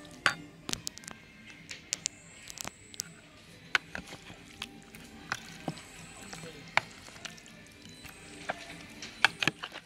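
A metal spoon stirring chunks of raw pork in a bowl of marinade, making irregular clicks and knocks against the bowl.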